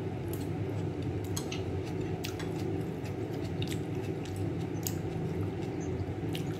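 Chewing and small scattered clicks of someone eating noodles, over a steady low hum.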